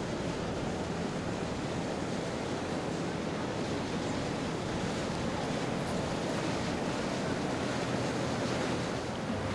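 Steady rushing of water, mixed with wind noise.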